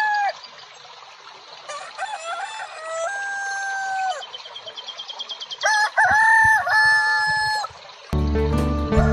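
A rooster crowing three times, each crow ending in a long held note, with small birds chirping high above it. Music comes in about eight seconds in.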